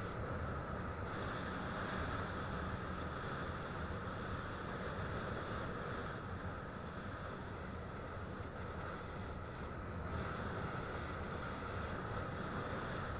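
Steady rush of air over a small camera carried aloft in flight, with a faint high whine that cuts out and comes back a few times.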